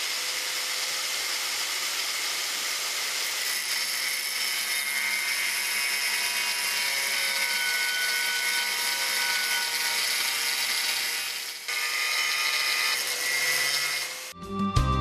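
Angle grinder with a 100 mm diamond cut-off wheel grinding through the edge of a glass sheet under a water spray: a steady, hissy grinding sound that dips briefly about twelve seconds in. Music comes in just before the end.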